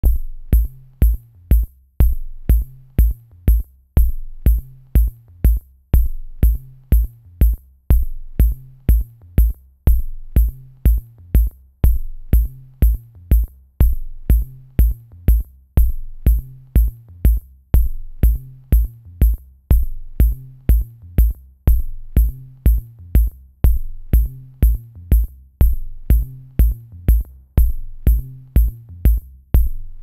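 Electronic background music with a steady drum-machine beat: a deep kick and a bass line under short, crisp high ticks repeating evenly.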